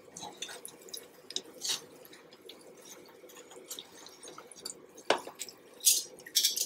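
Apple hand pies frying in hot oil in a saucepan: a steady sizzle with many small pops and crackles. A few louder clicks come as metal tongs turn the pies, the loudest about five seconds in and more near the end.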